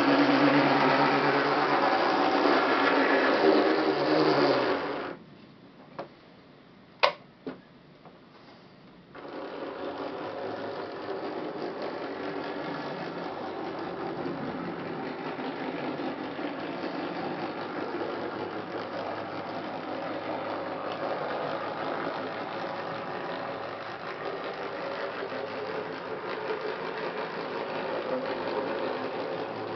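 Nn3 scale three-truck Shay model locomotive's geared drive whirring as it runs on a foamcore test board that amplifies it, the gearing still new and not yet run in. It runs loudly, stops about five seconds in, a few sharp clicks follow, and about nine seconds in it starts again and runs on more quietly.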